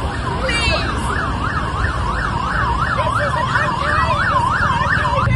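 Emergency vehicle siren in a fast yelp, its pitch sweeping up and down about two and a half times a second, over the low rumble of stopped traffic.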